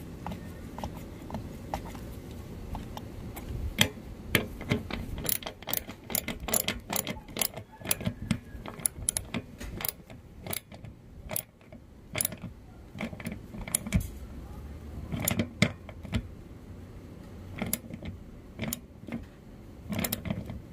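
Ratchet with a 15 mm socket clicking in quick irregular runs with short pauses as it turns the nut on a car's fuel-door lock latch, tightening the latch back into place.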